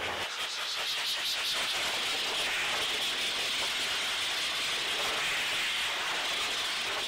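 BLO Blowair RS car dryer blowing air out through its hose and nozzle onto the car's front grille: a steady rushing hiss that builds over the first second, then holds even.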